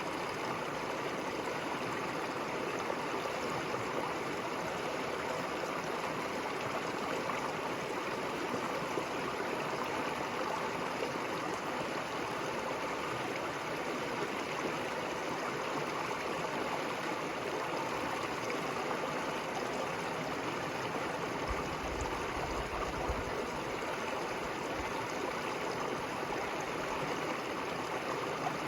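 River water flowing and gurgling in a steady rush, with a brief low rumble a little past the middle.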